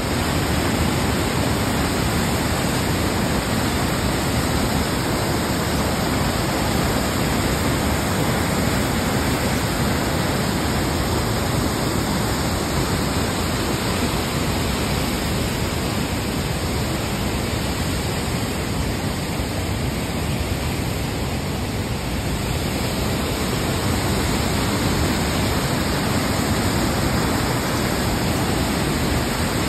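Waterfall: water falling down a rock face, a loud, steady, even rush.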